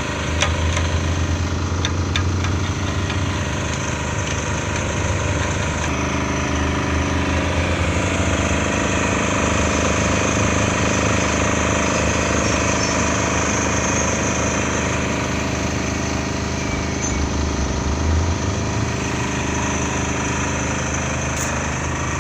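A surface drill rig's diesel engine running steadily, with a few faint clicks in the first couple of seconds.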